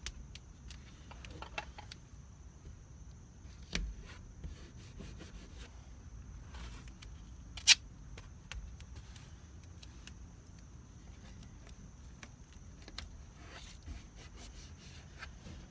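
Faint scattered rustles, scrapes and clicks of hand work while taping over pinholes in the RV ceiling, with a knock about four seconds in and a sharp click about eight seconds in.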